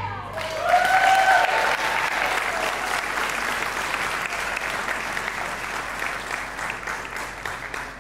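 Audience applauding as the dance music stops, with one voice whooping about a second in; the clapping thins out near the end.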